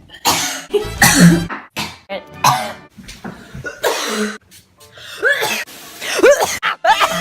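A young woman coughing over and over, a run of short, harsh coughs through the first four seconds or so.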